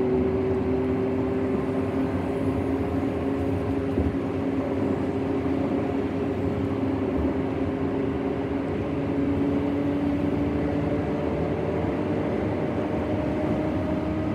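Road and engine noise heard inside a moving car's cabin: a steady rumble with a hum that rises slowly in pitch.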